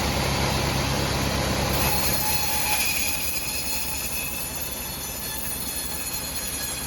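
Sawmill saw cutting a very hard acacia log, a high screeching whine of the blade in the wood over a low machine hum. The low hum eases after about two seconds while the high whine carries on.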